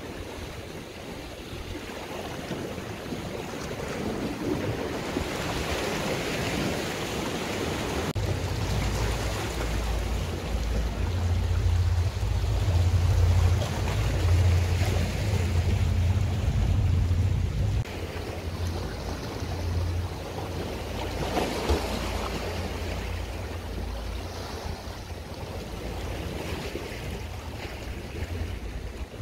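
Small sea waves washing and breaking against shoreline rocks, with wind rumbling on the microphone, heaviest for about ten seconds in the middle.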